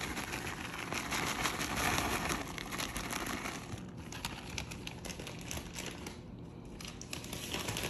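Plastic bag of shredded cheese crinkling as the cheese is shaken out of it, with many small crackles and clicks; the crinkling thins out about halfway through.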